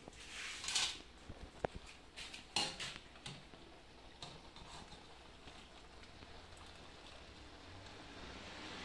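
A few light clinks and rustles of a stainless steel pot and strainer being handled as cooked pasta is scooped out, then a faint steady hiss.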